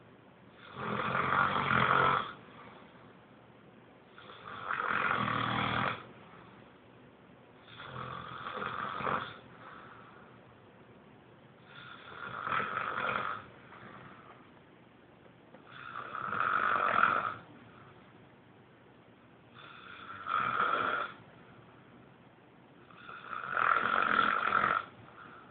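Snoring: seven slow, regular snores, one about every four seconds, each lasting about a second and a half, with quiet gaps between.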